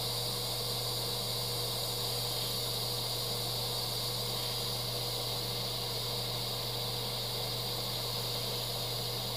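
Steady hiss of compressed air from an airbrush held close to the panel, blowing on the wet paint dots to push them outward, with a faint low hum underneath.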